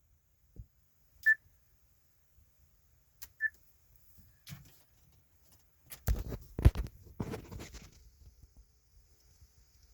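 Two short electronic beeps about two seconds apart, followed a few seconds later by a burst of clicks and knocks.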